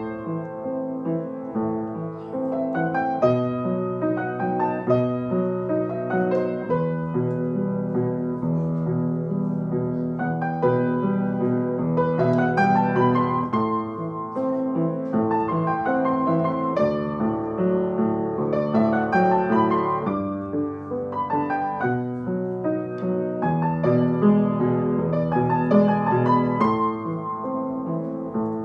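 Acoustic upright piano played solo: a slow, lyrical piece of sustained chords and melody, with rising runs of notes about halfway through.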